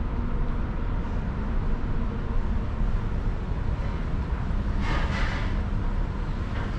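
Steady low rumble of a cruise ship's interior background noise, with a brief brighter hiss about five seconds in.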